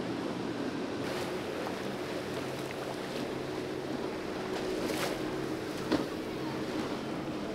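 Outboard engines running at speed, with water rushing and spray as a center-console boat crosses choppy inlet water. A sharp thump comes about six seconds in.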